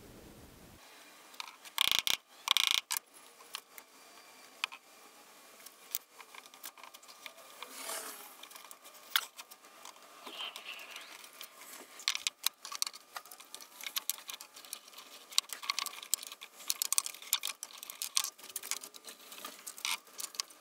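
Scattered clicks, taps and light knocks of pine parts, wooden dowels and a plastic glue bottle being handled on a workbench during a dowel glue-up. There are a few louder knocks about two seconds in, and denser ticking and clacking in the second half.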